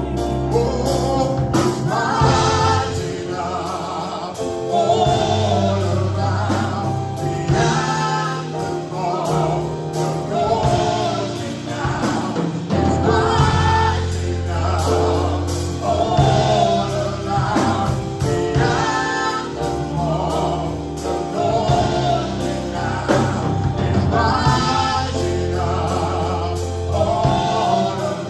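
Gospel praise and worship music: a live band with drums and bass, and a choir of singers over a steady beat.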